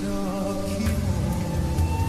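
Music with sustained melodic notes over a steady low bass line and occasional percussion.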